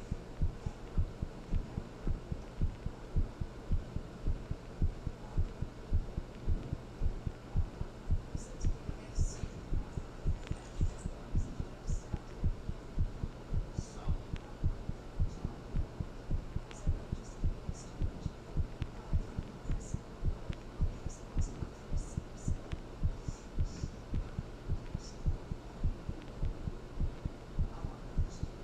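Human heartbeat: steady, regular low thumps over a low steady hum.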